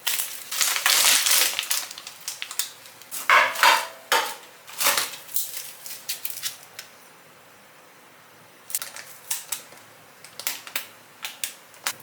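Kitchen work sounds: dense rustling and clattering at the start, then scattered sharp clicks and knocks of things being handled and set down. There is a short ringing clink a little after three seconds.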